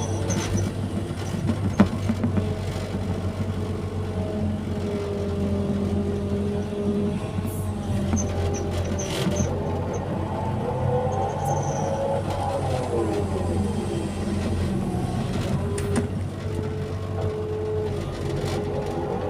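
Hydraulic excavator working: its diesel engine runs steadily while a hydraulic whine rises and falls in pitch as the boom and bucket move. There is a sharp knock about two seconds in.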